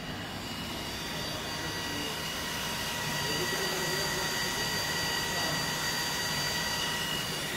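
Hot-air banner welding machine running: its blower hisses steadily with a high whine while the drive rollers feed a PVC banner hem past the hot-air nozzle. The sound grows a little louder about three seconds in.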